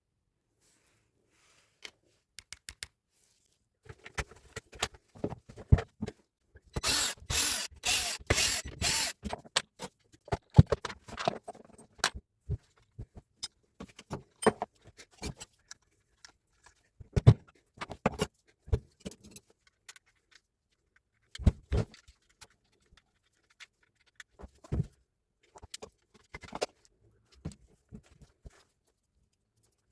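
Irregular clicks, knocks and rattles of tools and metal parts being handled, with a run of about five short, loud, noisy bursts about seven to nine seconds in.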